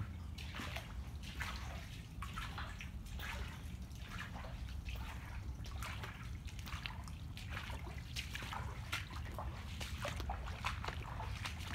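Footsteps splashing and sloshing through shallow standing floodwater, with many small irregular splashes and drips over a steady low rumble.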